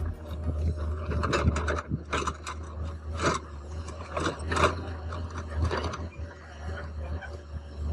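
Excavator running with a steady low engine hum, overlaid with irregular short clanks and creaks from the working machine.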